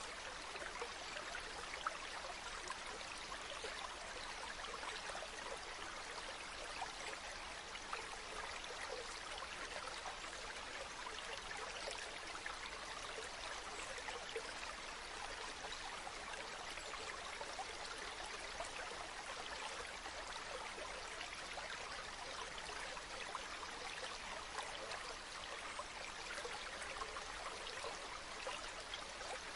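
Flowing water, an even, steady rush like a small stream, with fine trickling detail.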